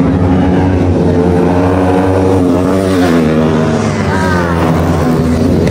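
Motorcycle engine running at steady, unchanging revs, with voices faintly over it.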